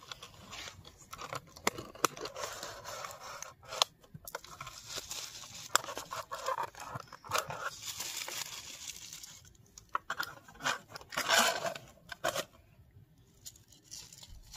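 Unpacking a boxed ornament by hand: a cardboard box, its clear plastic clamshell insert and tissue paper crinkling, rustling and clicking, with many short snaps and longer rustles about eight and eleven seconds in.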